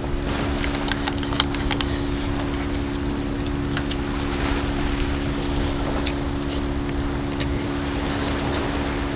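A boat's engine running steadily with a low, even hum, with scattered sharp clinks of chopsticks and steel tableware over it; the loudest clink comes about a second and a half in.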